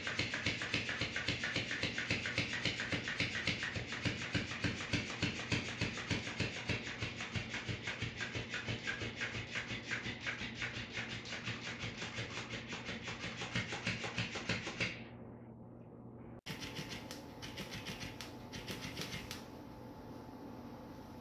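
Battery-powered flopping fish cat toy flapping its tail against a tile floor: a rapid, even slapping, several flaps a second, over the whir of its motor. The slapping fades and stops about fifteen seconds in. After a break a quieter, irregular patter follows.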